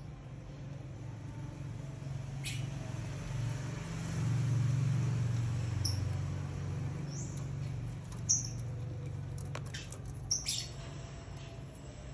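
Lovebirds giving short, high chirps and squeaks, about half a dozen scattered through, with a couple of sharp clicks about ten seconds in. Under them runs a low steady hum that swells for a couple of seconds about four seconds in.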